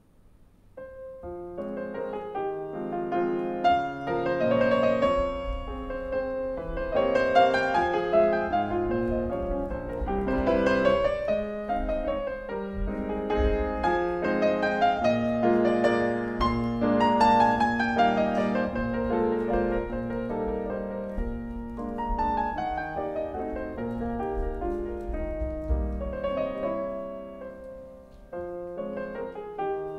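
Classical piano music with rapid runs and chords, starting about a second in.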